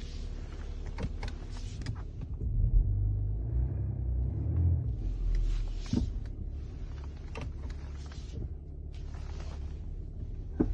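Cabin sound of a BMW X7 on the move: a steady low road rumble with half a dozen sharp knocks scattered through it. The knocks come from the suspension, a strong knock that has appeared at 50,000 km and that is placed at the front left.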